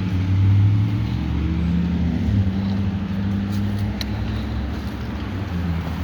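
Street traffic: a motor vehicle's engine running close by with a steady low hum.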